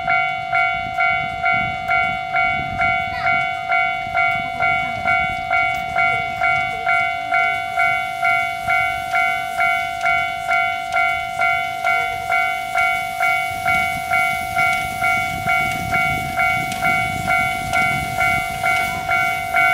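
Railway level-crossing warning bell ringing in an even beat, about two dings a second, over the low running rumble of the small steam locomotive Amemiya No. 21 pulling its coaches past.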